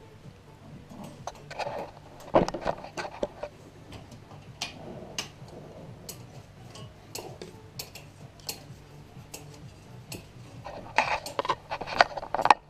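Scattered metal clinks and knocks from a partly dismantled pit bike engine and hand tools being handled on a wooden table, with a busier run of clatter near the end.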